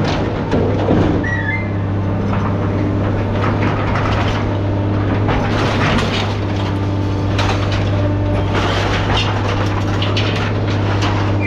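Heavy diesel machine engine running steadily, with scattered clanks and knocks of scrap metal being handled.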